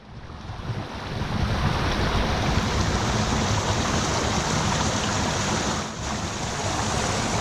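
Running water: a steady rushing that fades in over the first second or so, with a brief dip about six seconds in.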